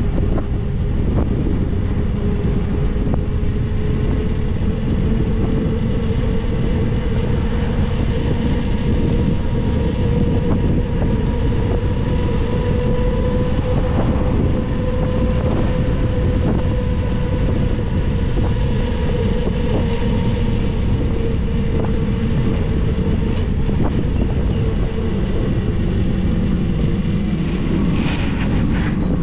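Wind rushing over the microphone of a bike-mounted camera while riding on asphalt, with a steady whine that rises slightly in pitch toward the middle and falls back again.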